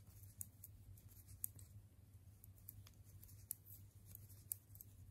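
Near silence, with faint, irregular clicks of metal knitting needles tapping as stitches are worked, over a low steady hum.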